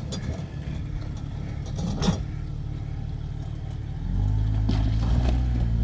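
Off-road vehicle's engine running low and steady, with a short knock about two seconds in. About four seconds in, the engine note rises and gets louder as it accelerates.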